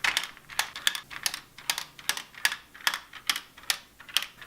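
Plastic Guess Who character tiles being flipped down one after another, a quick run of sharp plastic clacks at about two or three a second.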